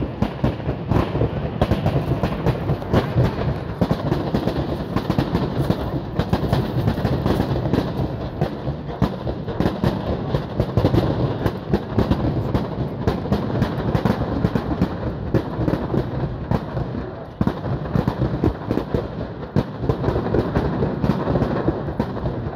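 Large bonfire of branches and brush burning close by: dense crackling and popping over a steady low rush of flames.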